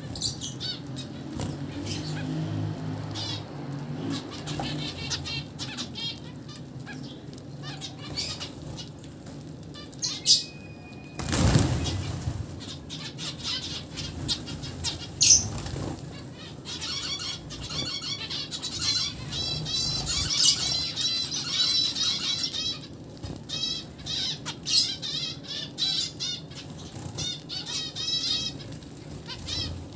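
A flock of zebra finches chattering with rapid, repeated short calls and fluttering wings as they crowd and feed together. About a third of the way in there is a loud rushing noise lasting about a second.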